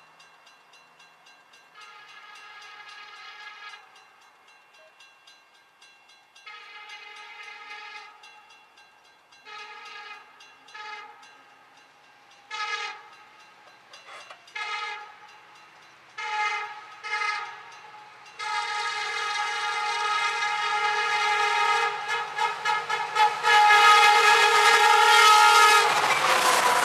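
An approaching CSX SD70MAC diesel locomotive's air horn sounding over and over, in short and long blasts that grow louder. From about two-thirds of the way in it becomes one long loud blast broken by a few quick toots. Near the end the locomotive passes close, with engine and rail rumble under the horn.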